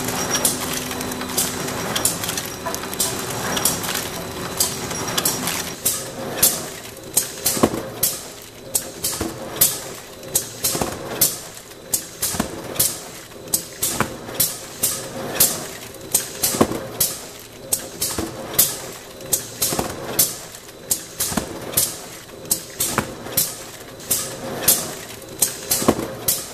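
Flow-wrapping machine running: a steady mechanical hum, joined from about six seconds in by sharp, regular clicks about twice a second.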